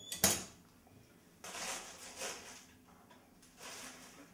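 Metal firebox door of a wood-burning kitchen stove banging shut once, a sharp clank about a quarter second in, followed by softer rustling.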